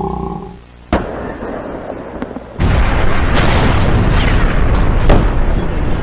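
The tail of a deep creature roar fades out, a sharp bang comes about a second in, and from about two and a half seconds a loud, continuous barrage of gunfire and explosions with sharp cracks runs on.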